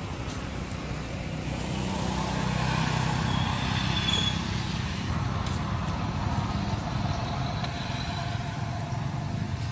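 A motor vehicle engine running: a steady low drone that grows louder about two seconds in and then holds.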